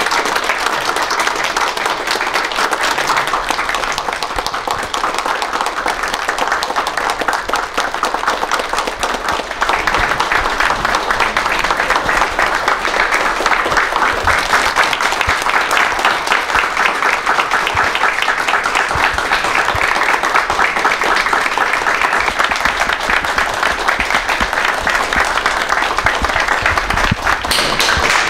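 Sustained applause from a group of people clapping, a dense, even patter of many hands. It grows louder about ten seconds in.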